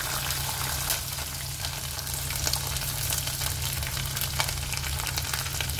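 Washed raw rice sizzling in hot oil in a steel pan: a steady frying hiss with many small crackles and pops.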